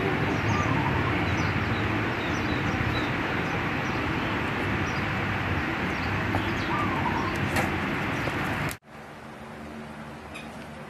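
Steady rushing background noise with faint, scattered high chirps. It cuts off abruptly about nine seconds in, giving way to a quieter hiss.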